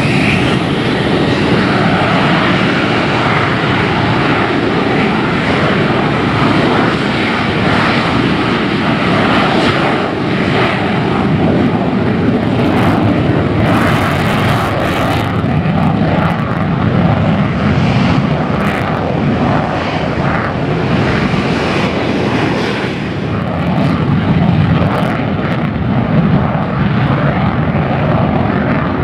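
F-16 fighter jet's engine at takeoff power through the takeoff roll and lift-off: loud, steady jet noise heavy in deep rumble, with a rising whine at the very start.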